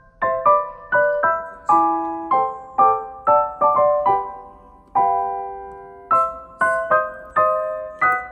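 Background music: a light piano melody of separate struck notes, about two a second, pausing on a held chord about five seconds in.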